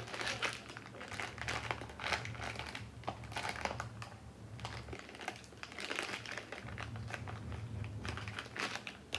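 Close-miked eating of ice cream: irregular clusters of crinkling and crackling sounds.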